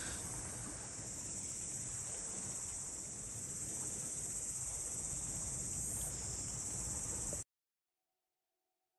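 A steady high-pitched chorus of insects chirring over a low, even background rumble. It cuts off suddenly about seven and a half seconds in.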